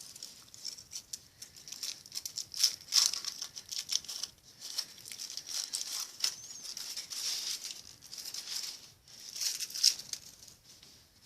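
Kinder Surprise egg's foil wrapper crinkling and rustling as it is peeled off the chocolate egg by hand, in quick irregular crackles that come and go, loudest about three seconds in and again near the end.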